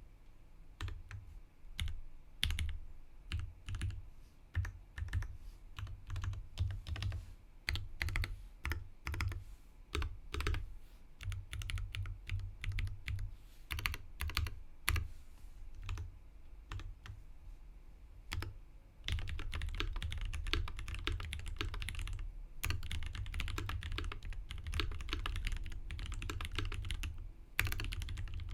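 Typing on a tenkeyless mechanical keyboard with lubed Durock T1 tactile switches and GMK doubleshot ABS keycaps. For about the first nineteen seconds the keystrokes come slower and unevenly with short gaps; then the typing turns fast and continuous, with brief pauses near the end.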